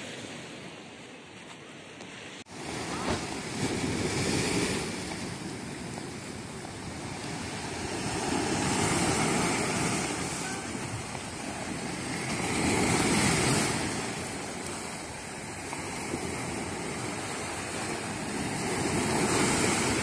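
Mediterranean surf breaking and washing up a sandy beach in rough winter weather, each wave swelling and fading every four to five seconds. It starts quieter and grows sharply louder a couple of seconds in.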